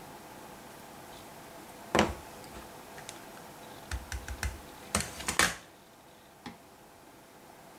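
Rubber stamp being inked and pressed onto card on a craft table: a sharp knock, a quick run of light taps, then a couple of louder knocks.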